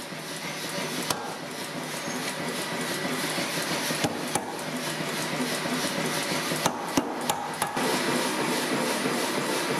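Metalworking in a blacksmith's forge: a steady noise that slowly grows louder, broken by a few sharp metal knocks, several of them close together about seven seconds in.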